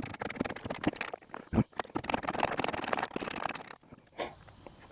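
Ratchet wrench clicking rapidly as the 10mm nuts holding the door check stop are backed off, stopping a little before the end.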